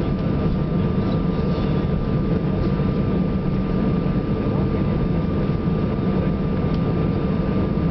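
Airbus A320-family airliner's jet engines at taxi power heard inside the cabin: a steady low rumble with a constant thin whine over it.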